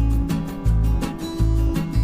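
Background music: an upbeat acoustic guitar track with a bass line and a steady beat.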